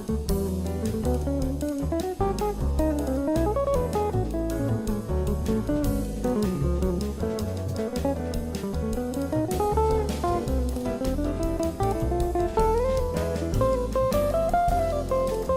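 Background music: a guitar-led instrumental with bass and drums keeping a steady beat.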